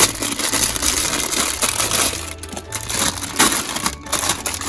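Clear plastic bag of plastic puzzle pieces crinkling as hands grip and squeeze it, with irregular crackles.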